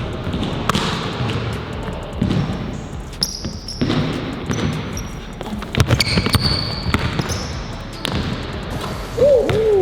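A basketball being dribbled and bounced on a court, with a run of sharp bounce impacts. Short high sneaker squeaks come a few seconds in and again about six seconds in.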